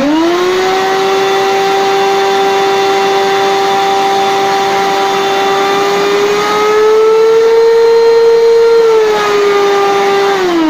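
Rowenta 1700 W vacuum cleaner motor switched on: it spins up to a loud, steady whine, goes a little higher in pitch for a couple of seconds past the middle, then is switched off near the end and winds down with a falling whine. It is running on its minimum setting, which the repairman finds far too fast for a vacuum's lowest speed.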